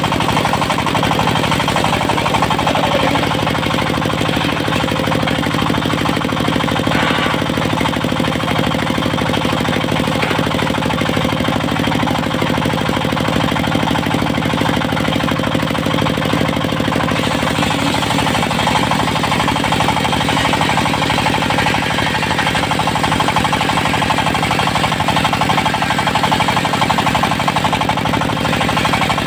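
Diesel engine of a portable circular sawmill running steadily with a rapid, even knocking beat. About halfway through, a higher hiss joins it.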